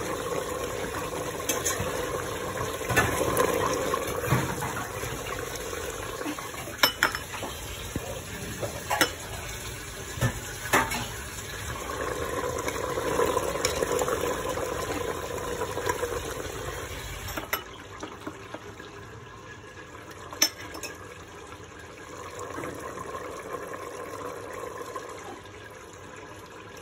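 Slotted metal spoon stirring and scraping in a pot of thick curry gravy, breaking up whole cooked cauliflower, with a few sharp clinks of metal on the pot, over a steady background hum.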